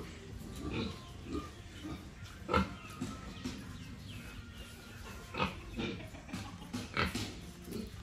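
A pig giving a run of short grunts and snuffles while it noses along a wet concrete floor, with louder single grunts about two and a half, five and a half and seven seconds in.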